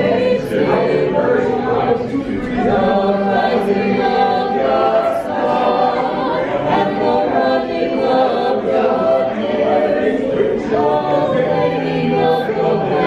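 Mixed four-part (soprano, alto, tenor, bass) vocal quartet singing a Christmas carol a cappella, the voices in close harmony without a break.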